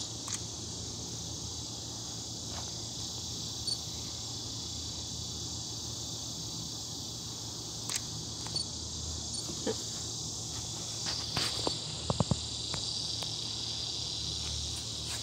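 A steady, high-pitched chorus of insects chirring outdoors. About twelve seconds in there is a quick run of sharp taps.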